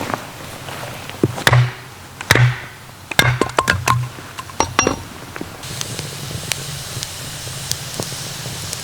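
A series of sharp knocks and clinks from camp gear being handled, some with a short ring, about a dozen in the first few seconds before it settles to a steady low background.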